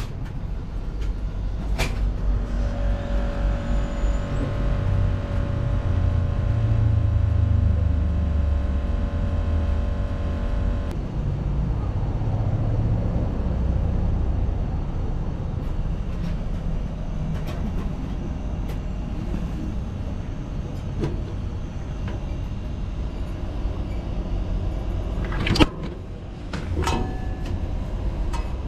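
Vintage toast-sandwich vending machine at work after its button is pressed: a steady low rumble with a humming tone that cuts off suddenly about eleven seconds in. Near the end a sharp clunk, the loudest sound, as the foil-wrapped toast drops into the delivery chute, followed by a few clicks and rattles of the metal delivery hatch.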